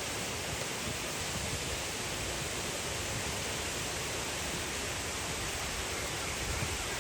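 Steady rushing of running water, an even hiss without breaks.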